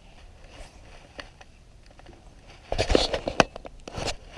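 Handling noise of fishing gear: a quick cluster of sharp clicks and knocks about three seconds in, and a couple more near the end, over a low background hiss.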